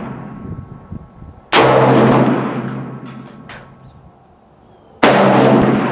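Two rifle shots from a Bear Creek Arsenal 6.5 Creedmoor semi-automatic AR-10-pattern rifle on an Aero Precision M5 lower. The first comes about a second and a half in and the second about three and a half seconds later. Each shot starts sharply and fades away over a couple of seconds in an echoing tail, and the tail of an earlier shot is dying away at the start.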